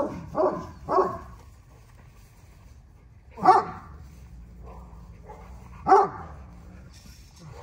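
American bully puppy barking in short single barks, each dropping in pitch: two close together in the first second, then one about three and a half seconds in and another about six seconds in.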